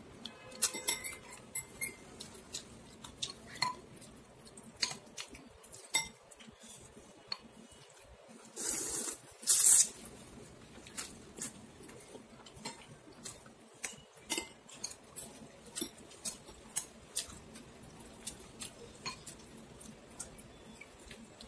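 Chopsticks and a white soup spoon clicking and clinking against a ceramic bowl of noodle soup as noodles are stirred and lifted, in many short irregular knocks. Two brief, loud rushing sounds come about nine and ten seconds in.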